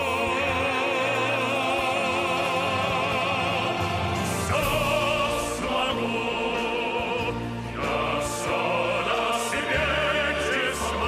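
Operatic singing over an orchestra: long held vocal notes with wide vibrato, changing pitch a couple of times.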